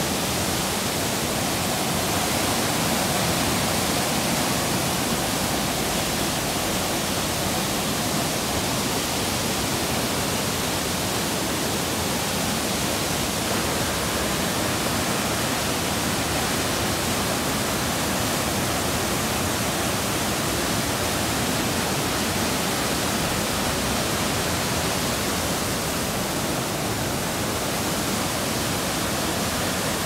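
Mountain stream cascading over boulders in a small waterfall: a steady, loud rush of water.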